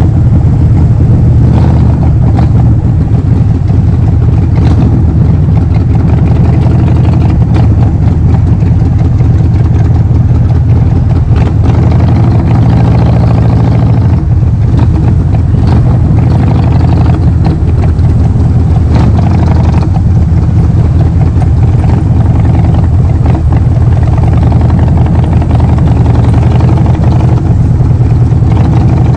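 Harley-Davidson Forty-Eight XL1200X's air-cooled 1200 cc V-twin running through a Vance & Hines full exhaust system, a loud, steady exhaust note with small shifts in engine speed now and then.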